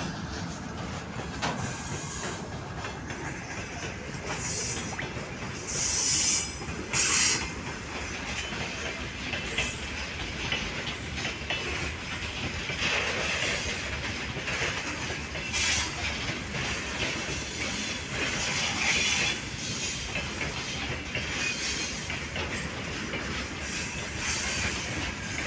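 Freight tank cars rolling past at speed, their wheels clattering over the rail joints in a steady rumble. Short high-pitched wheel squeals break through, loudest twice about six and seven seconds in.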